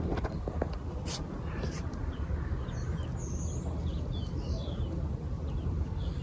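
Birds calling in flight: scattered short, high chirps and a few calls that slide down in pitch. Underneath is a steady low rumble of wind and distant outdoor noise, and a single click about a second in.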